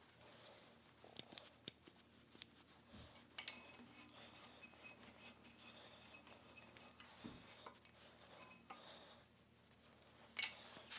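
Faint, scattered metallic clicks and clinks of steel parts and hand tools being handled, a few quick ticks about a second in and another near the end.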